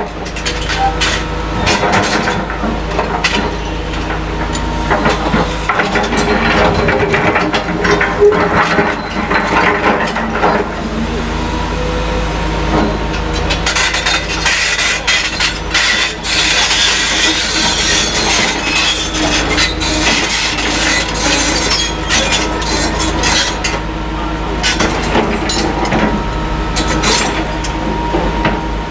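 Caterpillar excavators' diesel engines running steadily under the clatter and crunch of demolition rubble, with many sharp knocks. A rougher stretch of scraping and grinding comes in the middle.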